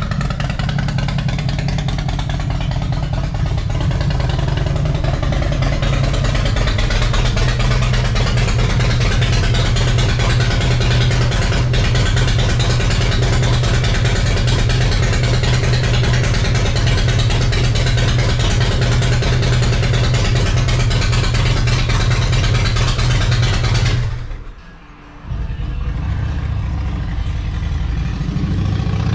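Harley-Davidson V-twin motorcycle engine running steadily as the bike is brought into the garage. The sound breaks off about 24 seconds in and an engine is heard again a second later.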